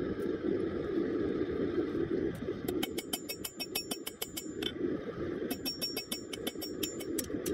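Propane forge burner roaring steadily. About three seconds in, a hand hammer starts striking red-hot rebar on the anvil in quick ringing blows, forging it into a knife blank. The blows pause for about a second and then resume.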